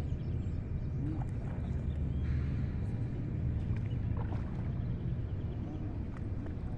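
A steady low rumble, with a short burst of brighter noise about two seconds in and faint high chirps.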